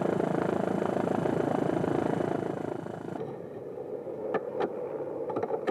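Helicopter rotor chop and turbine running close by, a fast, even beat. About three seconds in it cuts off, leaving a quieter background with a few sharp knocks of bricks thrown onto a rubble pile.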